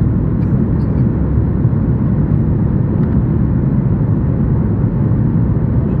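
Steady low rumble of cabin noise inside a Boeing 737-8 MAX: the CFM LEAP-1B engines and airflow heard from a window seat.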